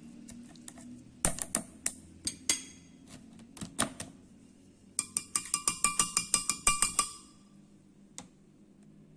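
Clicks and knocks of kitchen utensils being handled, then a quick run of ringing taps, about ten a second for two seconds, like metal or glass tapped rapidly.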